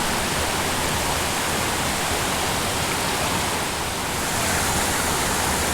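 Steady rushing of water pouring over an artificial waterfall at a small dam into the pool below.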